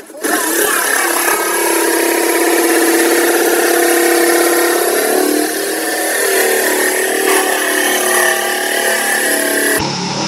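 Reciprocating saw (Sawzall) running hard as it cuts through the boat's hull, a steady motor whine with a harsh rasping hiss from the blade. The pitch dips and wavers about halfway through as the cut loads it, and the sound stops suddenly near the end.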